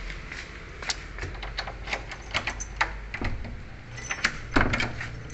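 Irregular clicks and taps, then a louder clatter about four and a half seconds in as the metal lever handle of a wooden door is worked and its latch clicks, with a key hanging in the lock.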